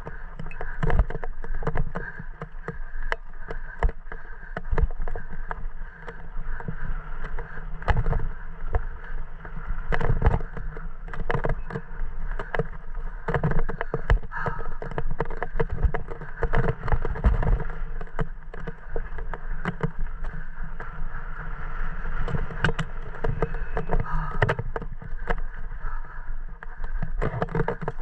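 Mountain bike ridden fast downhill on a dry dirt trail: tyres crunching over dirt and loose stones, with frequent knocks and rattles from the bike as it hits bumps, over steady wind noise on the mic.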